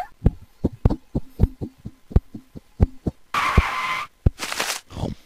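A quick, even run of low thuds, about five a second. Near the middle it is broken by two short bursts of hissing noise, the first with a faint steady tone in it.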